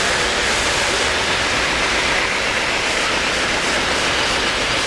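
O-gauge model trains running on three-rail track, a steady rolling rumble and hiss of wheels and motors.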